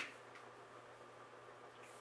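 Near silence: room tone with a faint steady low hum and a couple of faint ticks.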